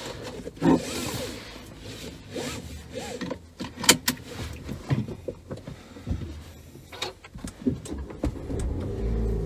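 Seatbelt and fittings being handled in a car's cabin: rustling, rubbing and sharp clicks as the belt is pulled across and buckled and the sun visor is pulled down. Near the end the car's engine starts and settles into a steady low idle.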